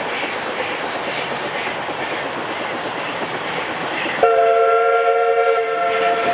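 Narrow-gauge steam locomotive approaching unseen, its exhaust a steady rushing sound. About four seconds in, its whistle sounds a chord of several notes, held for about two seconds.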